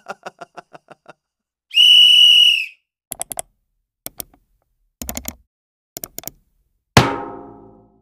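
A string of meme sound effects. A fast run of repeated blips fades out, then a loud whistle blast sounds for about a second. Small clusters of quick knocks follow, and near the end comes one loud hit that rings and dies away.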